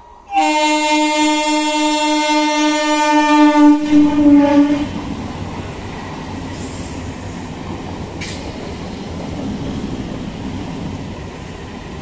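Indian EMU local train sounding one long horn blast as it approaches, the horn's pitch dropping as the cab passes, then the steady rumble and clatter of its coaches rolling past.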